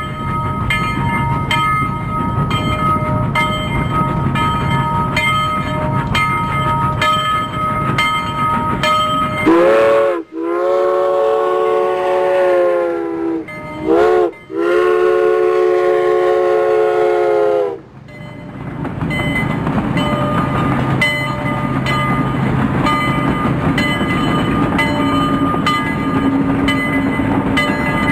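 Indian Railways train running, a steady rumble with evenly spaced clicks. About ten seconds in, the locomotive horn sounds in two long blasts with a short toot between them. The running noise then fades back in.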